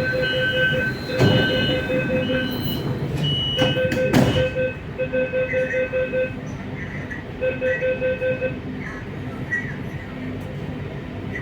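Metro train's door-closing warning beeper sounding in bursts of rapid beeps, with a few sharp knocks. The beeping stops after about eight and a half seconds, leaving the train's steady running noise.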